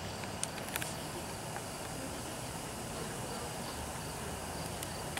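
Crickets chirping in a steady high-pitched pulse over a steady low background hum, with a couple of faint clicks in the first second.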